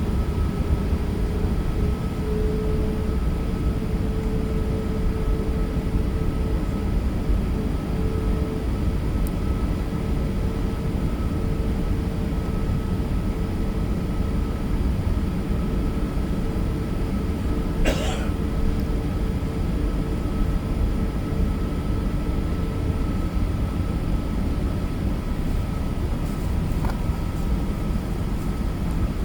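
Steady cabin noise aboard an Airbus A380 airliner: a continuous low rumble of engines and airflow with a faint steady hum over it, and one brief click about 18 seconds in.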